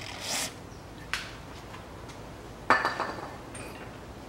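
A short hiss of an aerosol lubricant spray at the start, then a small click and, about two and a half seconds in, a sharp metallic clink with a brief ring, like a steel tool or socket being handled.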